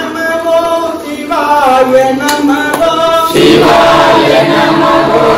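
Male voices chanting a devotional hymn: one voice in long held notes, joined about three seconds in by a group chanting together, louder and fuller.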